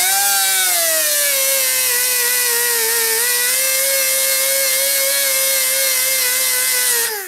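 Small handheld rotary sander with an abrasive sanding disc grinding rust off a steel axe head: a steady whine with hiss, its pitch sagging slightly under load about three seconds in, then spinning down right at the end.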